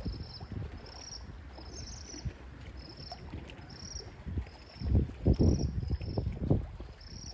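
A high insect chirp at one steady pitch, repeated evenly about once a second. Under it is a low rumble of wind or water that swells in loud gusts about five seconds in.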